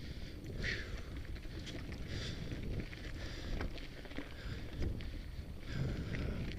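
Rumble of wind and movement on a helmet-mounted camera's microphone while riding a mountain bike on a dirt trail, with scattered clicks and rattles from the bike.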